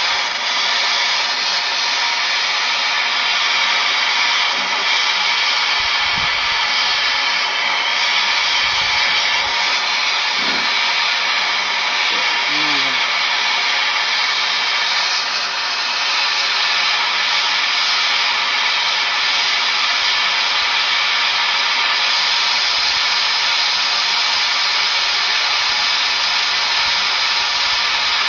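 Handheld gas torch flame hissing steadily while it heats a copper pipe joint for silver-solder brazing.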